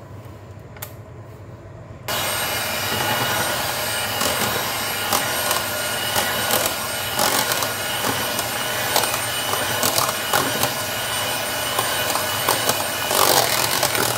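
Electric hand mixer switching on about two seconds in and running steadily, its beaters whipping whipped cream into a chocolate mixture in a metal pot, with a faint whine and scattered clicks.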